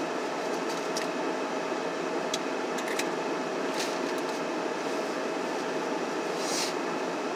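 Steady rush of a car's heater blower fan running inside the parked car, with a faint steady hum under it. A few soft clicks and a short rustle near the end come from eating at the wheel.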